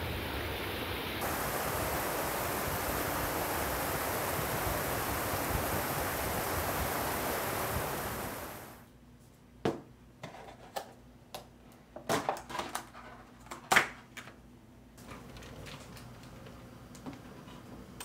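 Steady rush of a stream flowing fast past stepping stones, cutting off abruptly after about eight and a half seconds. Then a quick series of light knocks and clicks from objects handled and set down on a desk, with one sharper knock a few seconds before the end.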